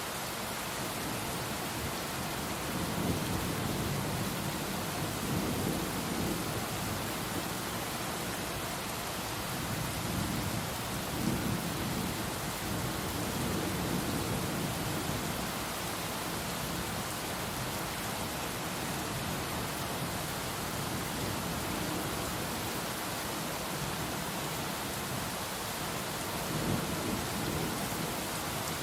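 Heavy rain pouring steadily. Low rolling rumbles of thunder swell and fade through the first half and once more near the end.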